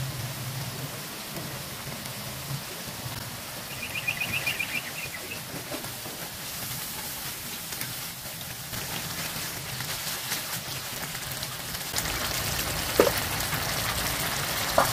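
Spice paste sizzling in a nonstick wok while a spatula stirs and scrapes through it. A brief run of quick high ticks comes about four seconds in, and the sizzling and scraping grow louder near the end.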